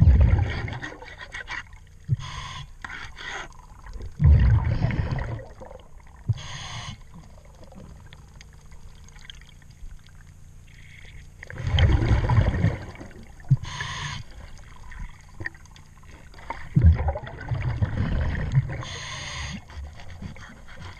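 A diver breathing through a regulator, recorded underwater: a short hiss on each inhale, then a low bubbling rumble as the exhaled air escapes, four breaths in all.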